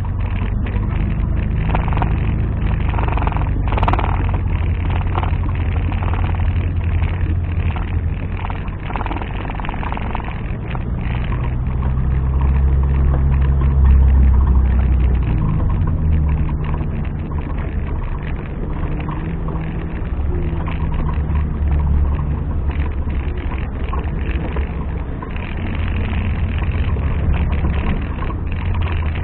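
Off-road 4x4 engine running at low revs under load, its note rising and falling as it works over rough ground, loudest about halfway through.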